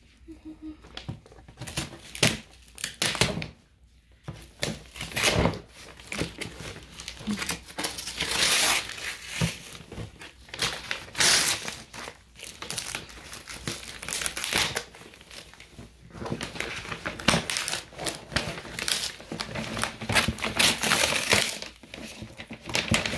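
Brown kraft paper wrapping being torn and crumpled off a cardboard box, in irregular rustling, ripping bursts.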